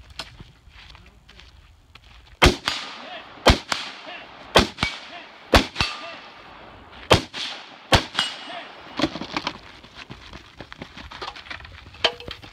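Rifle shots fired one at a time, six loud ones about a second apart, several followed by a brief metallic ring of steel targets being hit. A few fainter sharp pops follow near the end.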